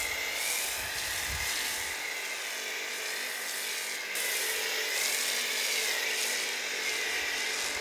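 Pressure washer spraying snow foam through a foam cannon: a dense hiss of spray over a high whine from the washer that wavers slowly in pitch. The sound breaks and comes back slightly louder about four seconds in.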